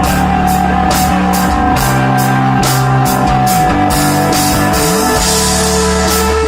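A live rock band of guitar, bass and drums playing an instrumental passage. Held bass notes move in steps under a steady sustained guitar tone, while cymbals strike evenly about twice a second.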